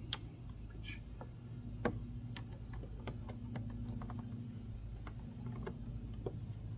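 Irregular light clicks and taps of plastic being handled as an air-intake vent grille and its gasket are pressed into a plastic side panel, over a steady low hum.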